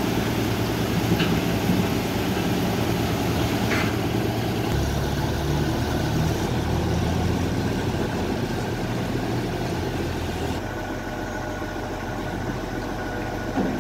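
Diesel engines running steadily as a Caterpillar TH63 telehandler comes down the ramp of a tilt-bed recovery truck, with two sharp knocks in the first four seconds. About five seconds in, the engine note deepens while the truck's bed is tilted back level.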